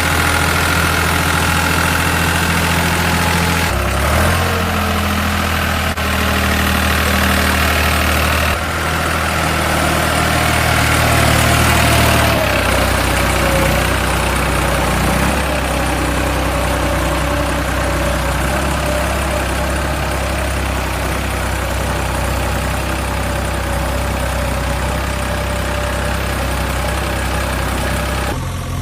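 Engine of a heavy machine running steadily near idle, with a low hum whose tone changes abruptly a few times, about 4, 8, 12 and 15 seconds in.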